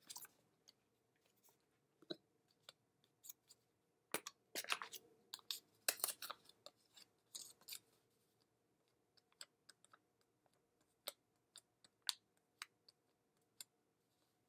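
Small handling noises: scattered clicks and rustles as a makeup tube and a pad are handled. They come in a dense cluster from about four to eight seconds in, then thin out to single ticks.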